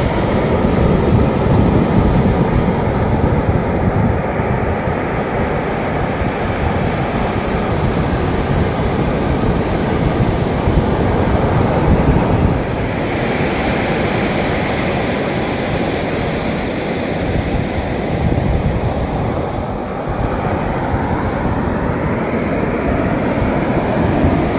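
Ocean surf breaking and washing up a sandy beach, with wind buffeting the microphone.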